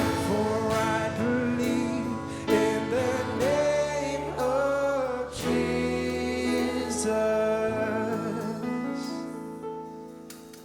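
Music with a singing voice over sustained instrumental chords, fading out near the end.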